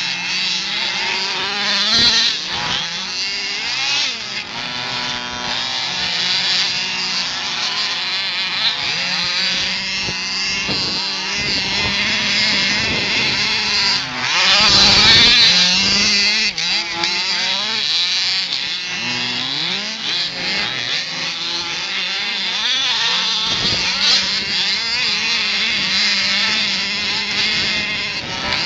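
Several HPI Baja 1/5-scale RC buggies' small two-stroke petrol engines buzzing and revving up and down at once, their pitches rising and falling over each other, with a steady lower drone underneath. The revving is loudest about halfway through.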